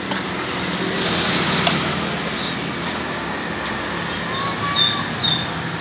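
Water pouring and splashing in a plastic tub as slaughtered catfish are washed by hand, over a low steady hum. A few short high chirps come about four to five seconds in.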